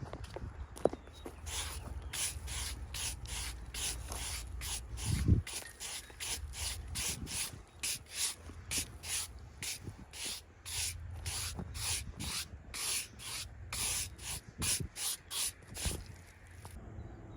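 Repeated short rasping strokes, about two a second, stopping abruptly near the end, with a sharp click about a second in and a dull thump about five seconds in.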